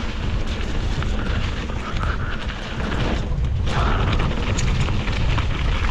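Steady wind rumble on a helmet-mounted GoPro's microphone as a mountain bike is ridden down a wet dirt trail, with tyre noise and many small rattles and clicks from the bike.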